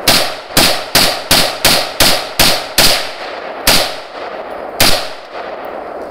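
AR-15 rifle firing rapid semi-automatic shots: eight in quick succession at about three a second, then two more about a second apart, each shot followed by a ringing echo.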